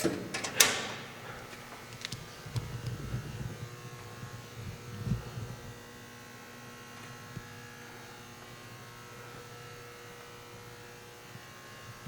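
Two or three sharp clicks in the first second, a few soft knocks over the next few seconds, then a faint steady electrical hum.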